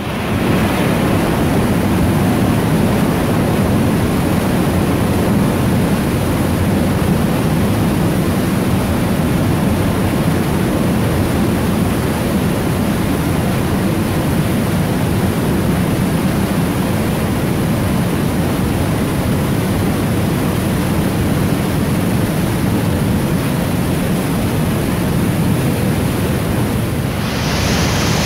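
Mountain torrent rushing and splashing down a narrow rock gorge, a loud, steady rush of white water, turning brighter and hissier shortly before the end.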